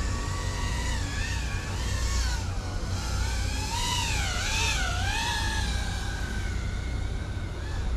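FPV quadcopter's motors whining, the pitch swooping up and down again and again as the throttle is worked, over a steady low rumble.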